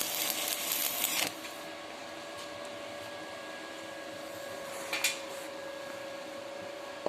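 Stick-welding arc with a 7018 electrode crackling and sizzling, cutting off abruptly about a second in as the arc is broken. After it a steady low hum remains, with one short click about five seconds in.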